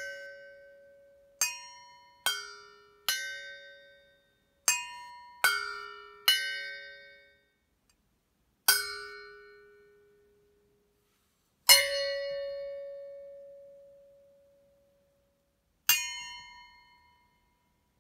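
Metal dog bowls struck one at a time with wooden drumsticks, about nine strikes at uneven intervals. Each hit rings out bell-like at its own pitch and fades away. The loudest hit, about twelve seconds in, rings for about three seconds.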